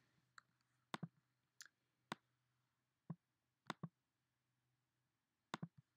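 Faint, scattered clicks of a computer being worked, about ten in all, some in quick pairs, against near silence.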